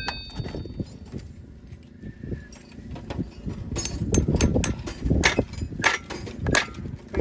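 A farrier's hammer driving horseshoe nails into a mule's hoof. After a quieter start, a quick run of sharp hammer taps comes about three a second.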